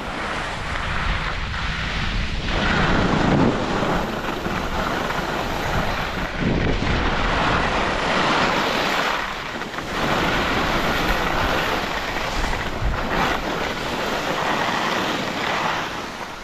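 Wind rushing over an action camera's microphone while skiing fast down a groomed piste, mixed with the hiss of skis on packed snow, swelling and easing every few seconds with the turns.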